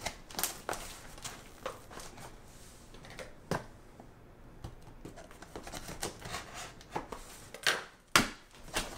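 Scissors slitting the packing tape on a cardboard shipping box, then the cardboard being gripped and pulled open: scattered scrapes, taps and rustles, with the loudest sharp crackles near the end.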